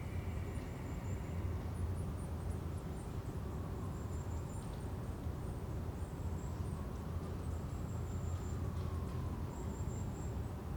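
Forest ambience: a steady low rumble under short, high chirps that come and go. A faint tone slowly slides down and then back up through the second half.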